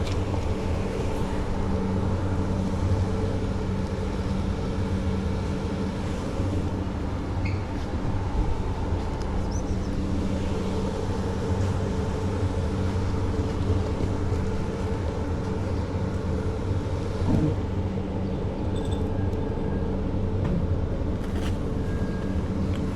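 A stationary train's steady, unchanging engine hum.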